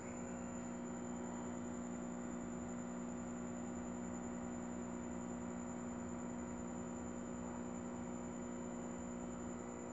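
Steady low electrical hum with faint hiss, a little louder from the very start and unchanging after that.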